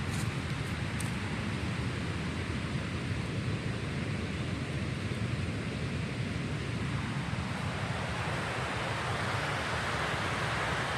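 Wind rumbling on the microphone outdoors as a steady noise, slightly brighter near the end.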